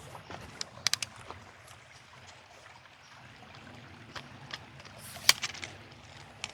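Shallow stream trickling faintly over the riverbed, with scattered sharp clicks and taps, the loudest about five seconds in.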